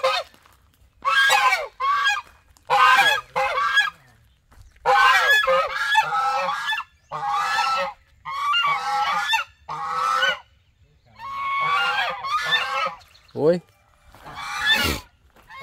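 Geese honking over and over, a quick series of loud nasal calls with some overlapping one another, as from several birds.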